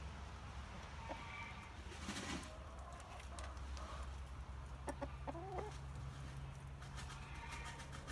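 Easter egger hen pecking pellets from a plastic feeder dish, her beak making scattered sharp clicks. A short clucking call comes about five seconds in.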